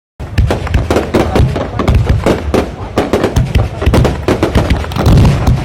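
New Year fireworks display: a dense, unbroken barrage of bangs and crackles, many a second and overlapping, cutting in abruptly just after the start.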